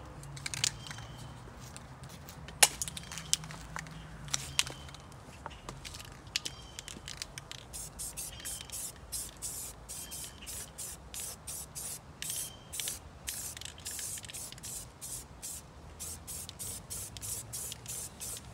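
Aerosol spray paint hissing in short, quick bursts, several a second, from about eight seconds in, while red paint goes onto the masked brake rotor. A few sharp clicks come in the first few seconds.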